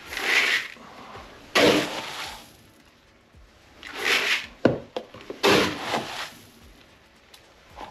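Chicken feed pellets scooped and poured into a plastic bucket, four pours in turn, each a brief rushing rattle of pellets. There is a sharp click from the scoop after the third pour.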